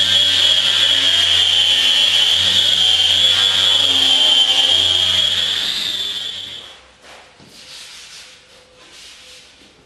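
Electric power sander running steadily with a high whine, sanding the plywood of a boat hull. It stops about six and a half seconds in, leaving only faint knocks and handling noises.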